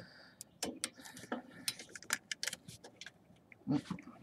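Faint, irregular metallic clicks and ticks from the wastegate actuator's threaded rod end being turned and fitted over the wastegate arm on the turbo while its length is set, with a duller knock about three and a half seconds in.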